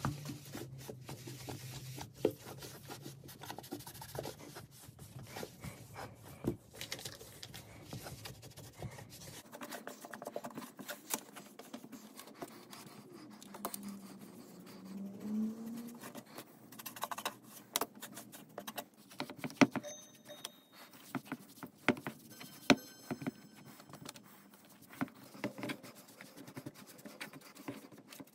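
Dry cloth rubbing over the wooden case of an old mantel clock, buffing off dried wax: a continuous rustle with scattered light knocks. A low hum underneath stops about a third of the way through.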